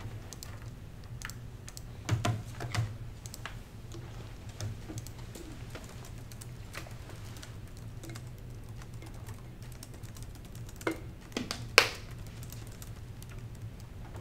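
Laptop keyboard typing: scattered light key clicks, with a few louder knocks about two seconds in and near the twelve-second mark. A steady low hum runs beneath.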